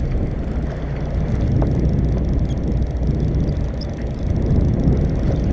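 Charter fishing boat's engine running with a steady low drone, under a rushing noise of wind and sea.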